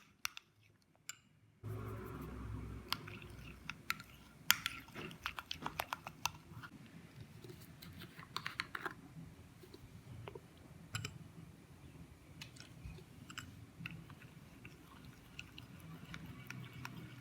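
Glue slime being stirred as it begins to set: a steady low rustle with quick, irregular clicks, starting about a second and a half in.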